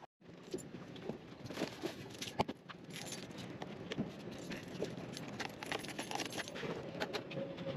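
Keys jingling on a key ring, with a scatter of small clicks and taps as the scooter key is handled at the ignition, over steady outdoor background noise.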